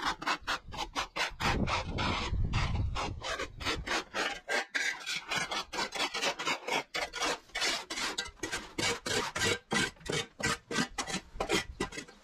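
Quick, repeated scraping strokes, several a second, of a plastic leaf rake and a flat shovel dragged across concrete and dirt to gather cut grass and moss.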